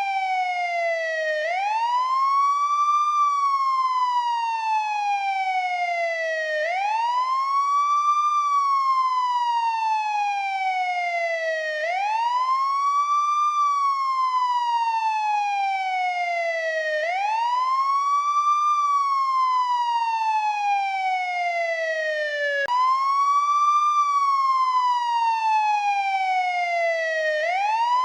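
American police siren in wail mode: a rising and falling tone that climbs quickly for about a second and a half, then sinks slowly for about three and a half seconds, repeating about every five seconds. About two-thirds of the way through, the pitch jumps suddenly back up in the middle of a fall, with a faint click.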